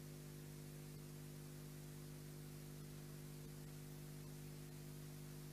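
Faint, steady electrical hum and hiss from the sound system's microphone and amplifier, idling with no voice on it.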